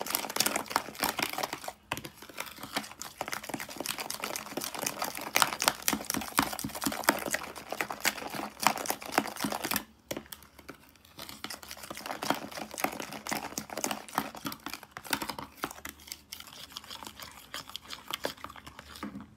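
A metal spoon stirring thick mayonnaise dressing in a bowl, making rapid wet scraping and clicking against the bowl's sides and bottom. It gets quieter and sparser about halfway through.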